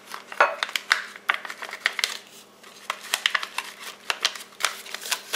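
A packet of dry seasoning mix crinkling and crackling in the hand as it is squeezed and shaken to empty the powder into a glass measuring cup. The crinkles come as irregular sharp clicks.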